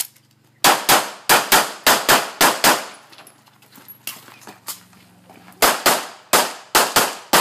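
Handgun shots fired in quick pairs: about four double-taps in two seconds, a pause of about three seconds, then another run of paired shots near the end.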